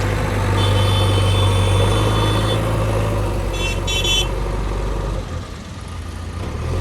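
Heavy diesel machine engine running steadily, with a high horn tone held for about two seconds, then two short toots. Near the end the engine sound drops away briefly.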